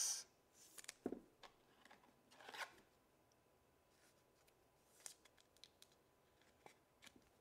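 Faint rustling and a few light clicks of plastic as a trading card is slid into a soft clear sleeve and then pushed into a clear plastic card holder.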